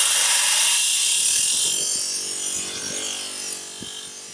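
Bench grinder wire wheel brushing the cut edge of an aluminium plate: a loud, harsh, high-pitched hiss that gradually gets quieter, as the sharp edges are deburred.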